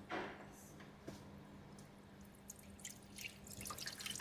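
Residual engine coolant dripping and trickling out of a just-loosened hose joint on a plastic coolant housing, starting as a few drips and becoming a denser, louder patter toward the end. A brief scrape comes right at the start.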